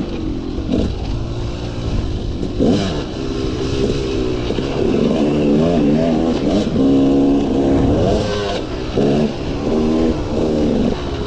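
KTM 300 two-stroke single-cylinder dirt bike engine revving hard under the rider, its pitch rising and falling again and again as the throttle is worked.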